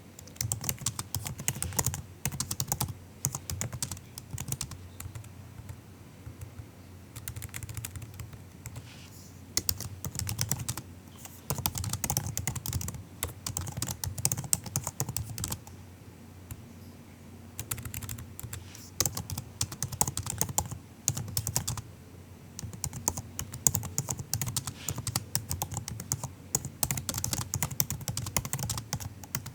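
Typing on a MacBook's low-travel laptop keyboard: soft, quick key clicks in runs of several seconds, broken by short pauses.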